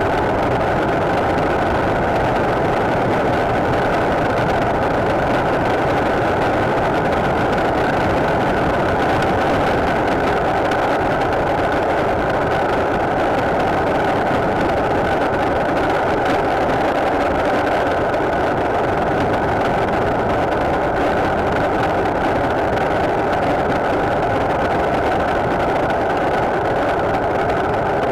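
Motorcycle being ridden at an even pace: steady engine and wind noise, with no gear changes or revving.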